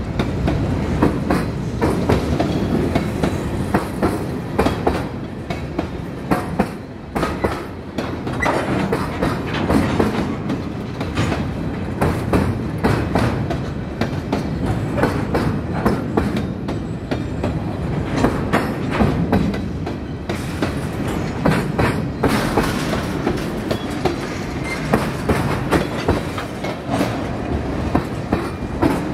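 Freight cars of a mixed freight train rolling past at close range: a steady rumble of steel wheels on rail, with continual clickety-clack as the wheels cross rail joints.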